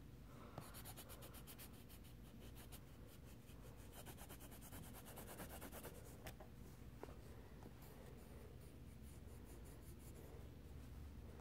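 Faint, rapid scratching of a colored pencil on a colouring-book page, in runs of quick back-and-forth strokes.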